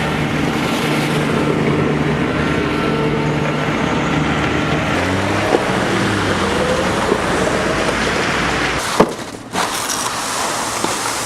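Street traffic: vehicle engines running over a steady wash of tyre and road noise. A sharp click comes about nine seconds in, followed by a brief drop in level.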